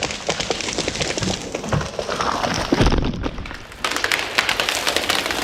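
Wood cracking and snapping with a series of thuds, the heaviest about three seconds in.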